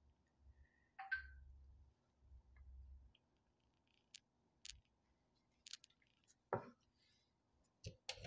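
Near silence broken by a few faint clicks and taps as small plastic tools and palettes are handled, with a duller thump about six and a half seconds in.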